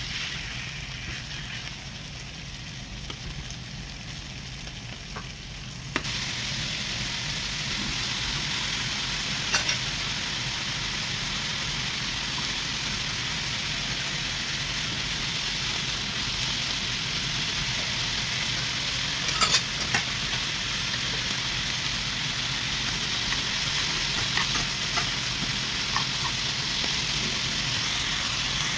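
Food frying in a pan, a steady sizzle that gets louder with a sharp click about six seconds in, with a few scattered pops and crackles.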